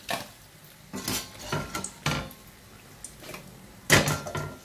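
Perforated metal skimmer clinking against a stainless steel frying pan as fried briouats are lifted out of the oil: about six short, ringing clinks, the loudest near the end.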